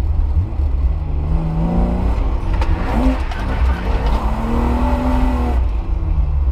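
Car engine revving twice, its pitch rising each time, over a steady heavy low rumble.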